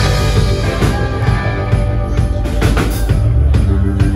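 Live rock band playing: electric guitar, bass guitar and drum kit kick in together right at the start and carry on loud and steady, with regular drum hits.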